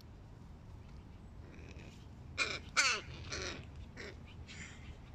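Hooded crows cawing: a run of about five short caws starting a little over two seconds in, the second one the loudest.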